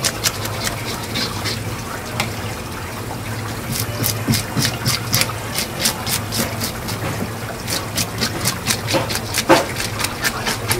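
Hand fish scaler rasping along a whole fish's scales in quick back-and-forth strokes, about three a second, under a running tap. A steady low hum lies beneath it.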